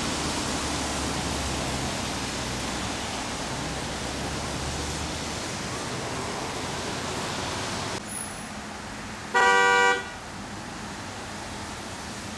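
Steady street noise on a wet road, then a car horn honks once, briefly and loudly, about nine seconds in.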